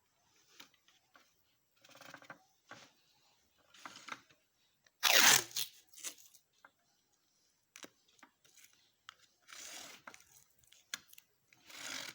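Irregular scraping and crunching handling noises from work on a bird cage, in short bursts, with one loud sharp burst about five seconds in.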